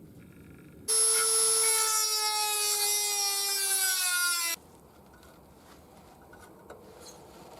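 Power tool motor whining under load for about four seconds, its pitch sagging slowly, then cutting off abruptly; it is being used on the stripped, seized bolts of a snowblower's recoil starter housing.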